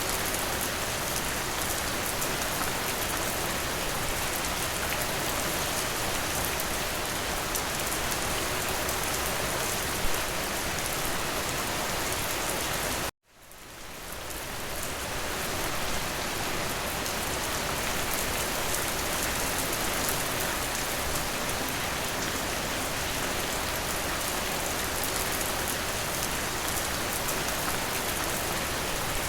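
Steady rain hitting a window. About halfway through, the sound cuts out suddenly and fades back in over a couple of seconds.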